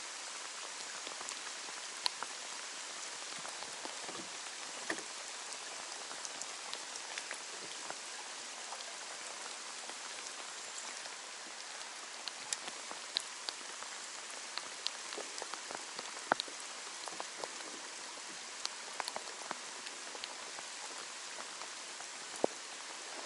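Steady rain falling, an even hiss dotted with the sharper ticks of single drops striking nearby.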